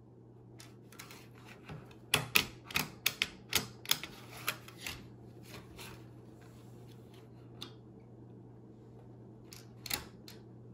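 Sharp plastic clicks and taps of a black d-CON enclosed snap mouse trap being set and handled on a wooden tabletop: a quick run of clicks about two to five seconds in, then two or three more near the end.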